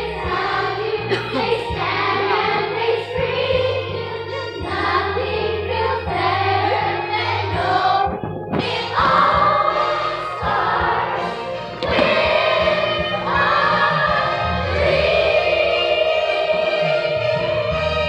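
A large group of children singing a song together over musical accompaniment, ending on a long held note in the last few seconds.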